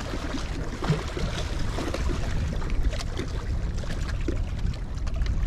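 Wind rumbling and buffeting on the microphone, over the wash of lake water lapping against the bank, with a few faint clicks.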